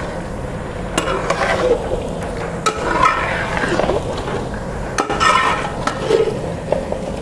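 A long metal ladle stirring chicken pieces through thick masala gravy in a large metal pot, with a few sharp clinks of the ladle against the pot.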